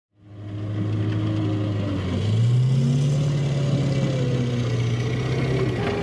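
Engine of an amphibious assault vehicle running with a steady low drone that fades in. About two seconds in it revs up, the pitch stepping higher and the sound getting louder.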